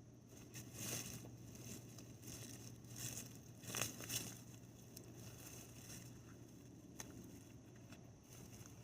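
Rustling and scraping of soil being dug through by hand to unearth sweet potatoes, in irregular bursts, with a single sharp click about seven seconds in.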